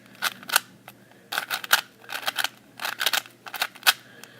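Rubik's cube faces being twisted quickly by hand: runs of sharp plastic clicks and clacks in irregular bursts as the cube is scrambled.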